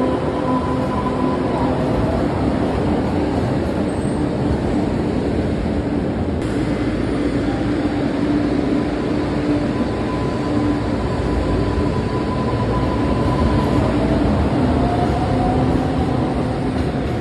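Boston Green Line light-rail trolleys moving through an underground station: a steady rumble of wheels on rail under a constant electric-drive hum, with a faint rising whine near the end.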